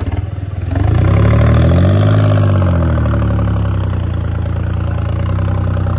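John Deere tractor's diesel engine running, heard from the driver's seat. About a second in it gets louder and its pitch rises and falls over a couple of seconds, then it settles into a steady run.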